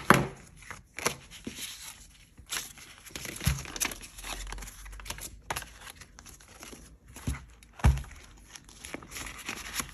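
Paper banknotes and a cardboard budget card rustling and crinkling as they are handled, with many small clicks and two soft knocks.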